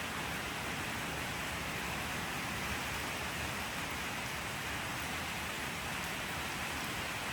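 Steady rain falling, an even hiss of many drops with no single drops standing out.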